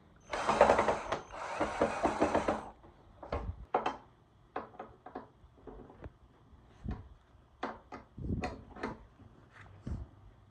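Two rasping bursts of noise about a second each near the start, then scattered light clicks and knocks of tools and parts being handled during workshop work.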